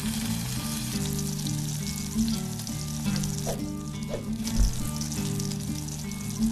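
Food sizzling and frying in a hot pan, a realistic sound effect, over soft background music.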